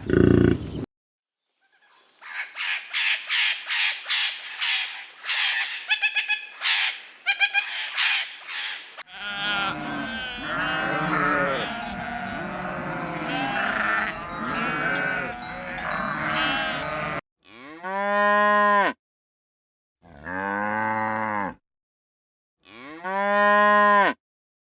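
A cow mooing three times near the end, each call long and drawn out with a gap of silence between. Before that come about seven seconds of rapid high-pitched chirping, then a stretch of many overlapping animal calls.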